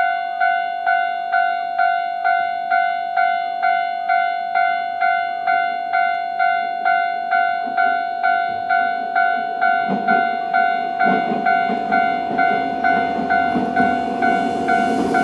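Japanese railway level-crossing alarm ringing its standard electronic bell tone, a steady ding repeated about twice a second. From about ten seconds in, the rumble of an approaching Jomo Electric Railway 700-series train grows louder beneath it.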